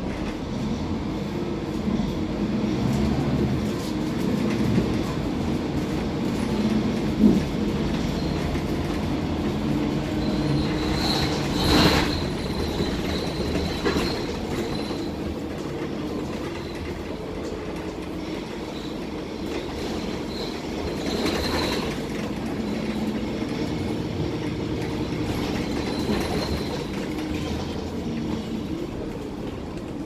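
Inside a moving Mercedes-Benz OC500LE single-deck bus: steady diesel engine and road noise with body and fittings rattling, and a high squeal that comes and goes, strongest about a third of the way in, and again later twice.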